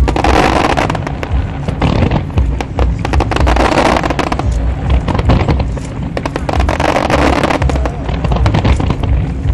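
Fireworks display: a dense run of rapid cracks and pops over deep booms, swelling and easing in waves every few seconds.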